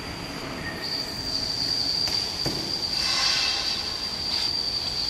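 BKT-60T helical-gear pipe welding turning roll running, giving a steady high-pitched whine that grows stronger about a second in and is loudest around the middle, with a few faint knocks.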